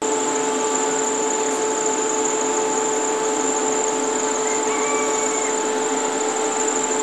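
Machinery of a wood-processing and lacquering workshop running steadily: a constant mechanical drone with a thin high whine over it.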